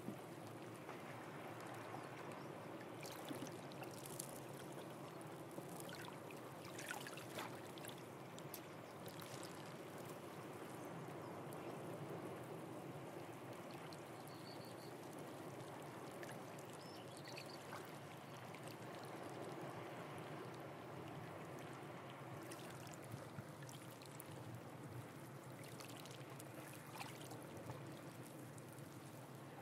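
Faint, steady rush of sea water on a rocky shore, with scattered small clicks and trickles.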